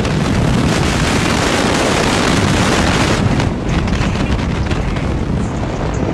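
Wind buffeting the microphone over the engine and road noise of a small truck driving along, heard from inside the cab.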